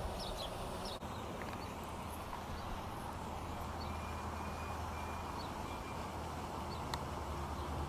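Outdoor ambience: a steady low rumble with a few faint bird chirps, and a single sharp click about seven seconds in.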